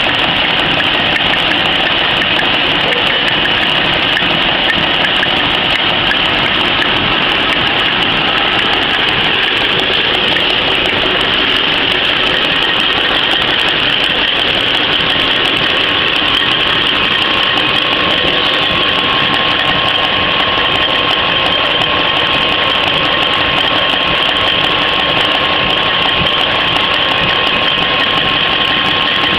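PCMC 23 cm paper napkin machine running steadily, a loud, even mechanical din with no let-up. A thin, steady whine joins about halfway through.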